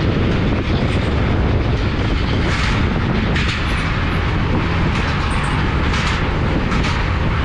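Yamaha Fascino scooter riding across a suspension bridge's slatted metal deck: a loud, steady rumble of the engine and tyres, with the deck clattering and rattling under the wheels every second or so.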